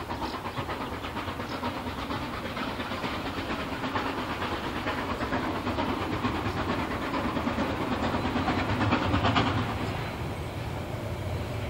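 Class 99.32 narrow-gauge 2-8-2 superheated steam locomotive working steam as it approaches, its exhaust chuffing in a quick, even beat that grows louder and then stops near the end.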